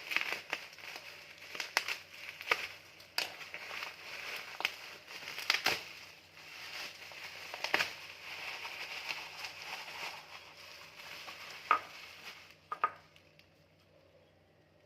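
Parcel packaging being handled and crumpled: a run of crinkling with sharp crackles and clicks, which dies down about two seconds before the end.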